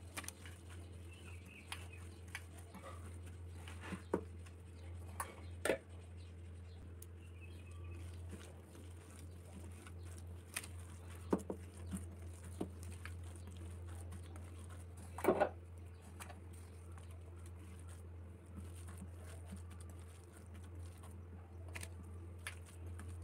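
Hands mixing and squeezing grated bottle gourd with gram flour in a stainless-steel bowl: soft squelching and pattering with scattered light clicks, the loudest about fifteen seconds in. A steady low hum runs underneath.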